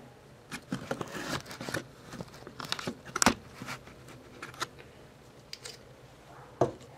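Close handling noise: rustling and crinkling of clothing and a hand-held paper coffee cup, with scattered sharp clicks and taps, the loudest about three seconds in and another near the end.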